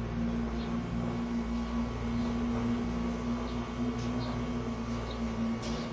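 Steady low electrical hum over a background hiss, with a few faint ticks about half a second, three and a half, four and five and a half seconds in.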